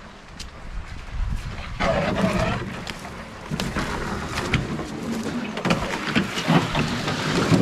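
Wooden strip canoe being carried and dragged through dry grass and brush, then set down on the ground: rustling and scraping of the hull against the brush, with irregular snaps and knocks of twigs and footsteps.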